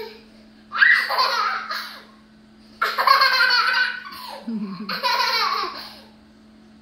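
A toddler girl laughing in four bursts, with a man's voice briefly among them about halfway through.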